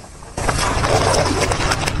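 A car tyre rolling onto plastic cups full of liquid and crushing them: plastic crackling over a low rumble. It starts suddenly about half a second in.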